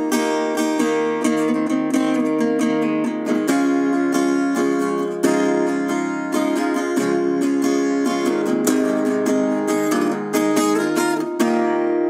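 Background music of a strummed acoustic guitar, playing steady chords with quick, even strokes.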